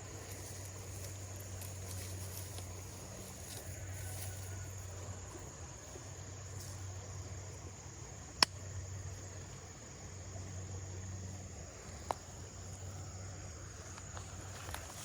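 Insects trilling in one steady, high, unbroken tone over a low, wavering hum. Two sharp clicks come about eight and twelve seconds in, the first the louder.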